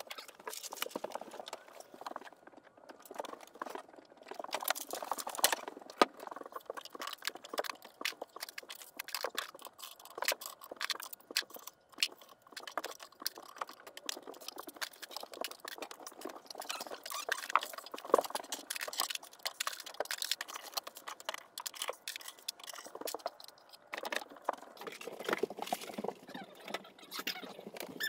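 A dense, irregular clatter of quick knocks, taps and rustles from household items being handled and moved about, with a short lull near the end.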